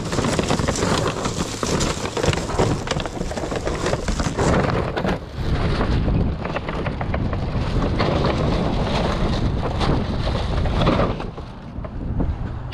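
Black plastic garbage bag rustling and crinkling as it is grabbed and pulled over a dumpster's metal edge, a dense crackle that eases off near the end.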